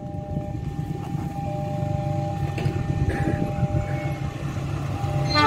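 Low rumble of an approaching train building steadily, with a steady electronic warning tone and a second tone sounding on and off, typical of a level-crossing alarm. Near the end a train's horn starts to sound.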